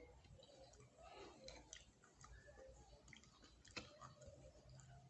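Faint close-up chewing of tortilla chips, with scattered small mouth clicks and one sharper click a little before the end.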